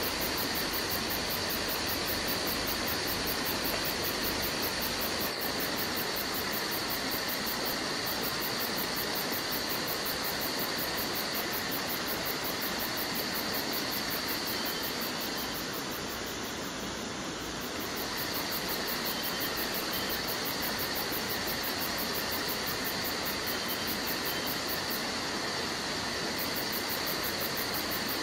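Steady hiss with two faint, steady high-pitched whines and no distinct events. The hiss dips slightly for a couple of seconds past the middle.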